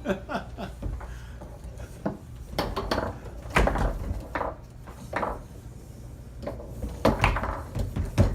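Foosball game in play: scattered hard knocks and clacks as the ball is struck by the rod-mounted players and bounces off the table, with a quick cluster of hits near the end.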